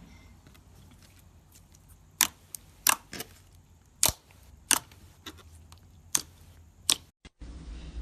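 Slime being squeezed and poked, giving off sharp popping clicks as air pockets burst, about eight at uneven intervals. Just after seven seconds the sound drops out and gives way to a low steady hum.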